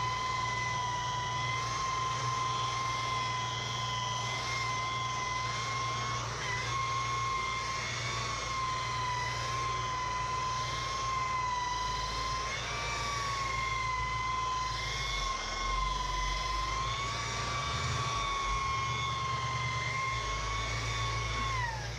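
A steady high-pitched mechanical whine, like a motor or turbine running at speed. It spins up just before, holds with a slight slow waver in pitch, and winds down near the end. A low hum sits underneath.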